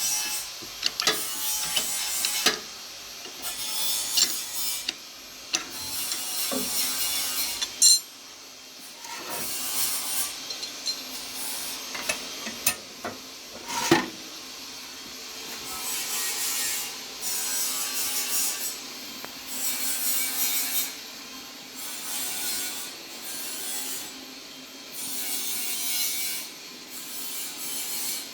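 Repeated rasping, scraping strokes, each about a second long and coming roughly every two seconds, with a few sharp clicks between them.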